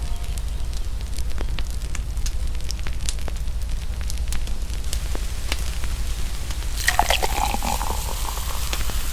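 Fireplace crackling with scattered sharp pops over a steady low rumble; about seven seconds in, liquid being poured splashes in over it.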